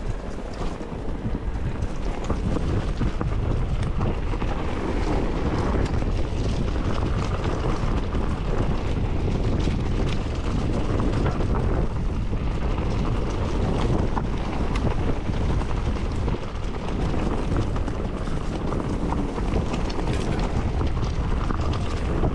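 Steady wind buffeting on the microphone while riding an electric mountain bike, with tyre noise and frequent small knocks and rattles from the bike over rough ground.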